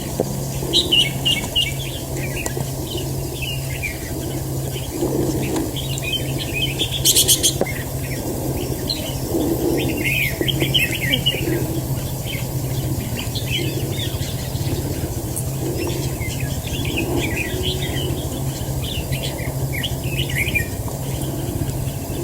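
Red-whiskered bulbuls calling and singing in short, repeated chirping phrases, over a steady low hum. About seven seconds in there is a brief burst of rapid clicks.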